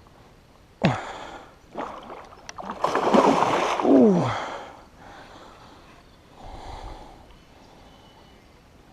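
Water splashing in several sudden bursts, loudest from about three to four and a half seconds in: a hooked Murray cod thrashing at the surface.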